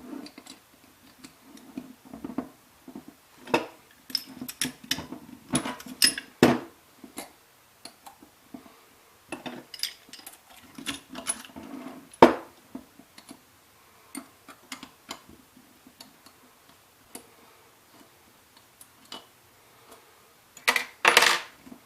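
Scattered clicks and metallic clinks of hand tools and steel parts being handled while a Hilti DX-350 powder-actuated tool is taken apart, with one sharper knock about twelve seconds in and a quick run of clicks near the end.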